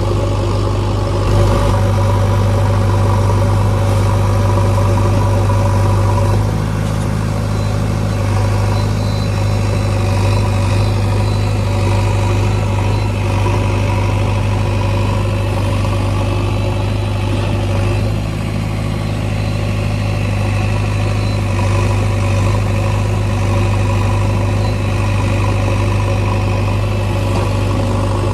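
Heavy diesel engine running steadily with a deep low hum, its note shifting slightly about a quarter of the way in and again past the middle.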